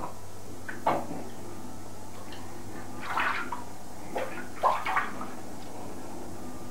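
Bathwater splashing in a tub as a baby is held and moves in it: brief splashes about a second in and again several times between three and five seconds in, over a steady low hum.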